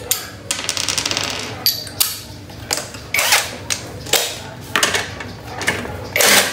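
Hand tools working on the bolts of a scooter's stock exhaust pipe: a quick run of ratchet-wrench clicks, then several separate metallic knocks and clanks as the pipe is loosened and taken off.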